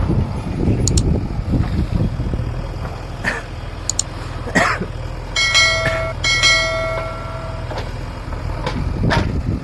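Backhoe loader's diesel engine running steadily, with scattered sharp knocks and clanks. Two horn blasts sound a little past halfway, the second one longer.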